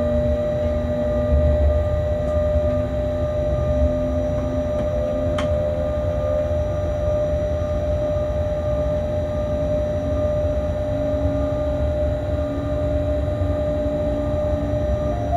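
Freight locomotive cab while running: a steady low rumble with a steady whine from the drive over it. A single short click about five seconds in.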